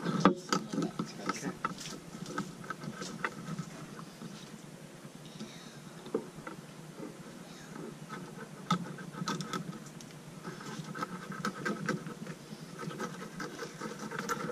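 Kitchen knife cutting into a whole tilapia on a plastic cutting board: a run of short scratchy strokes and clicks as the blade works behind the head and along the body.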